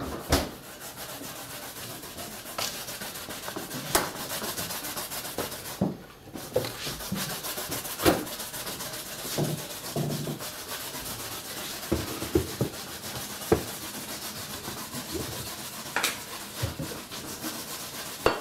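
Vegetables being grated by hand on a metal grater: a continuous rasping scrape, with a few sharp knocks against the board along the way.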